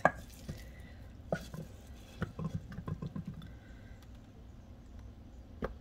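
Rice-and-bean stuffing being pressed by hand into a hollowed bell pepper: faint soft squishes and scattered light taps, with one sharper click near the end.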